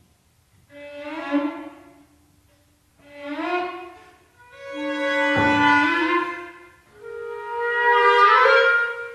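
Flute, clarinet, violin, cello and piano quintet playing sustained chords in four phrases, each swelling up and fading away with brief pauses between. A deep low stroke sounds about halfway through.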